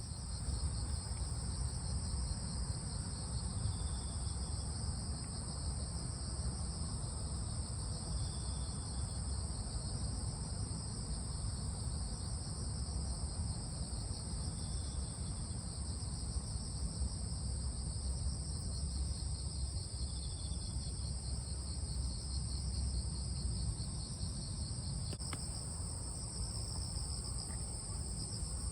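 Crickets trilling steadily in two high-pitched bands, with a faint short chirp every few seconds, over a steady low rumble.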